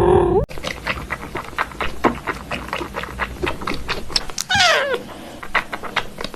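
A cat meows briefly. After a sudden change of sound, a run of quick clicks and scrapes follows, and a second cat call falls in pitch near the middle.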